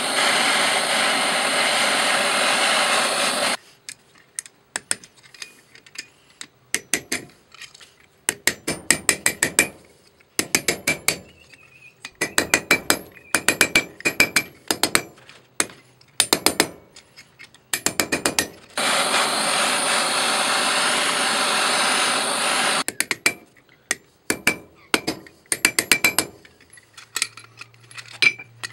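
A handheld gas blowtorch hisses steadily as it heats a steel pin held in locking pliers, then a ball-peen hammer strikes the pin on an anvil in bursts of quick, ringing metal blows. The torch hisses again for about four seconds in the middle, followed by more hammering and a few lighter taps near the end.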